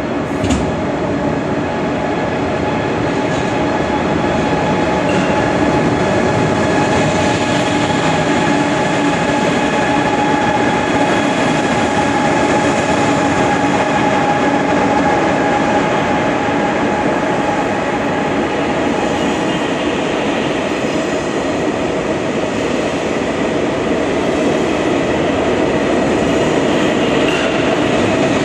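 KTX-Sancheon high-speed train running along a station platform: a steady rolling rumble of its wheels with a hum of several held tones over it. A single knock about half a second in.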